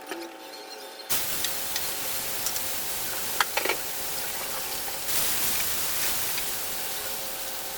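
Food hitting hot oil in a pan and sizzling, starting suddenly about a second in and holding steady, with a few clicks of a utensil against the pan around the middle.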